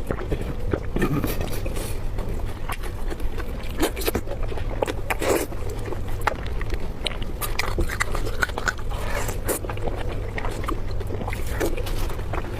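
Close-miked eating: irregular clicks, snaps and scraping from biting and chewing food, over a steady low hum.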